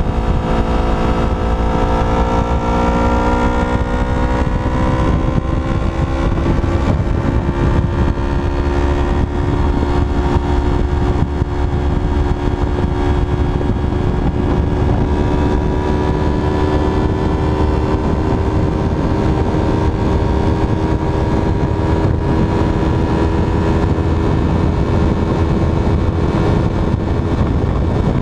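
Yamaha MT-03 motorcycle engine running hard at high road speed. Its pitch climbs steadily for the first several seconds as the bike accelerates, then holds nearly level at a fast cruise, under a heavy low rush of wind and road noise.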